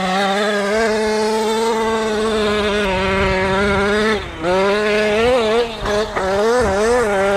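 Two-stroke gas engine of a 1/5-scale Kraken VEKTA RC trophy truck, fitted with a tuned pipe, held at high revs at a steady pitch. About four seconds in it eases off, then revs up and down in several quick throttle blips.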